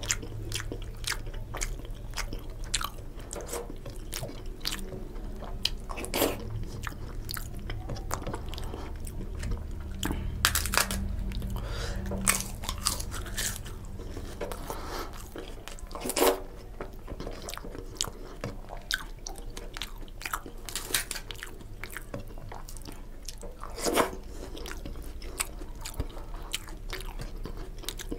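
Close-miked eating by hand: steady wet chewing and lip-smacking of khichuri and fried hilsa fish, broken by several loud, sharp crunches of crisp papad. A low steady hum sits under the first half.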